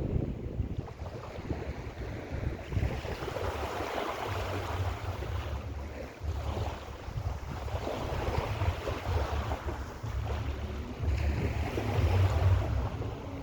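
Mediterranean sea waves breaking and washing up the shore, the hiss swelling and easing every few seconds, with wind rumbling on the microphone.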